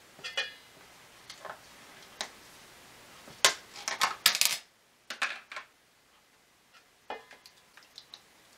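Clinks and knocks from a metal spoon and a stainless steel mixing bowl, along with a plastic quart sauce container being opened and handled. Scattered sharp taps, some with a short metallic ring, come thickest a little before halfway through.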